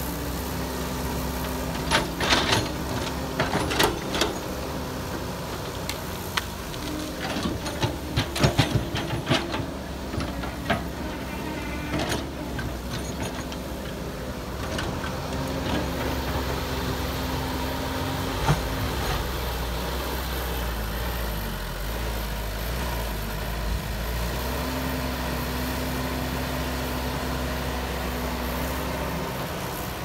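Heavy diesel engines of a dump truck and a CAT excavator running, a steady low drone. Scattered clanks and knocks come a few seconds in and again around eight to ten seconds.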